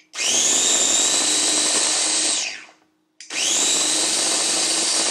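Electric mini food chopper whipping butter in two pulses. The motor spins up with a rising whine, runs steadily for about two and a half seconds and winds down. It starts again about three seconds in. The butter is still chunky and is being given more whipping.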